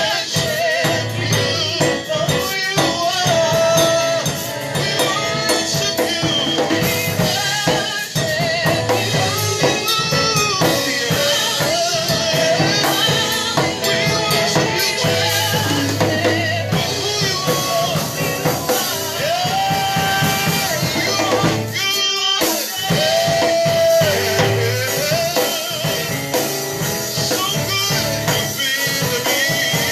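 Gospel worship song: a voice singing over a drum kit and bass, with a brief break just after the middle.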